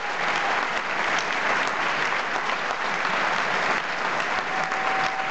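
Theatre audience applauding steadily, a dense wash of many hands clapping.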